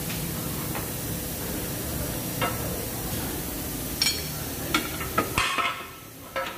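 A few sharp metallic clicks and taps from a hand wrench against the suspension bolts of a new lower control arm, spaced irregularly over a steady workshop hum and hiss. The hum drops away suddenly about five and a half seconds in.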